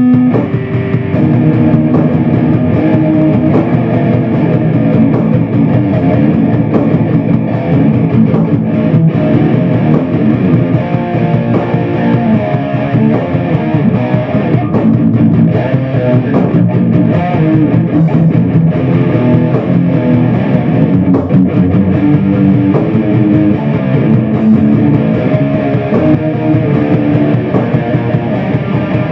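Electric guitar playing an improvised heavy-metal riff, loud and continuous, with the notes shifting quickly.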